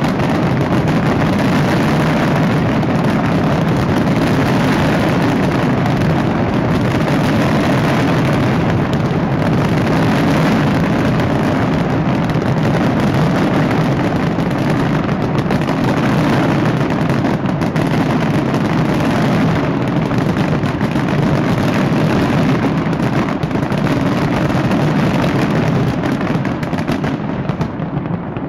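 A dense, continuous barrage of fireworks, the many bursts merging into one unbroken rumble. The barrage thins out near the end.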